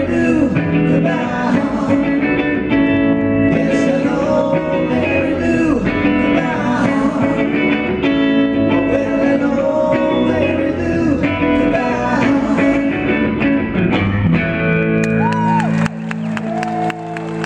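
A live pop-rock band plays, with two male voices singing over electric guitar and bass guitar. The song ends about 16 seconds in on a held chord, and the audience starts clapping.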